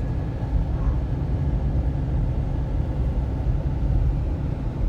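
Vehicle driving along a highway, heard from inside: a steady low rumble of engine and road noise.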